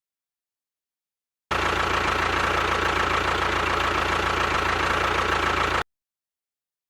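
A motor running steadily, starting abruptly after a moment of silence and cutting off abruptly about a second before the end.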